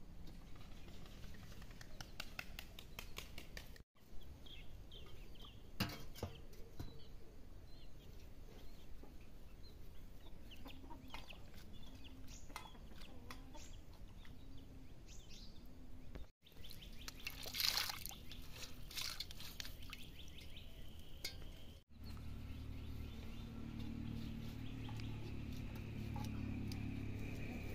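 Chickens clucking, a run of low clucks about once a second, among scattered clicks and knocks. Near the end a steady low rumble takes over.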